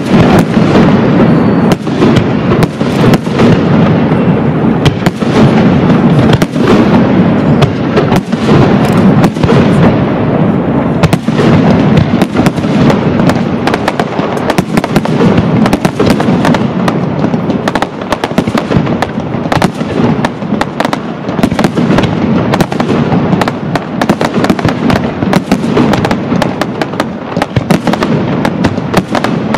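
Castillo fireworks display by Pirotecnia Caballer FX: a dense, unbroken barrage of aerial shell bursts and reports, many bangs a second overlapping one another, loud throughout.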